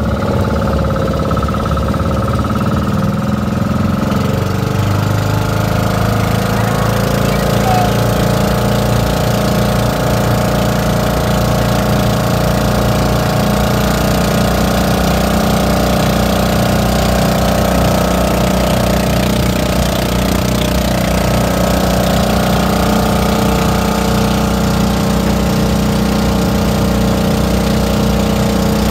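Outrigger boat's engine running steadily under way, its note shifting about four to five seconds in and then holding, with water rushing and splashing along the hull.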